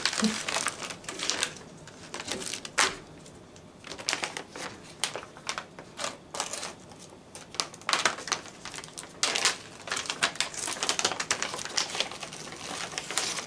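Clear plastic snack pouches of cheese puffs crinkling and crackling as they are handled and pulled open, in irregular clusters of sharp crackles with short lulls.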